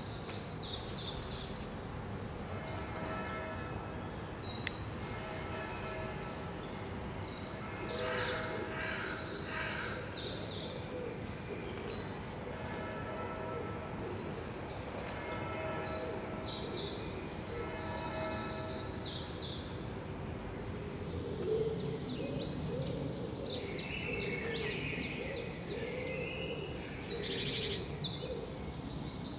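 Songbirds singing, several at once, in quick high chirping phrases that come in runs and grow busier near the end, over a steady outdoor background hum.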